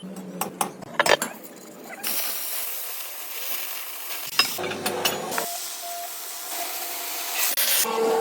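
A few sharp metallic knocks, then about two seconds in a steady crackling hiss typical of stick (arc) welding, which changes abruptly a couple of times.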